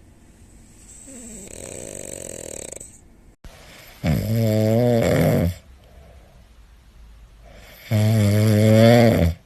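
Snoring: a softer, breathy snore, then after a short break two loud, drawn-out snores with a clear low pitch, each about a second and a half long and a few seconds apart.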